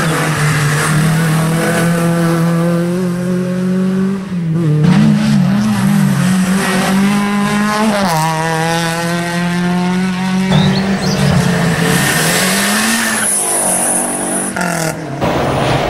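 Competition cars' petrol engines revving hard through a bend, the pitch climbing and dropping with each gear change and lift-off. One car passes close about halfway through.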